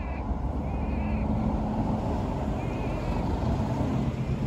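Road traffic: a ute and a sedan driving past with engine hum and tyre noise over a steady low rumble. Short wavering bird calls come several times over the traffic.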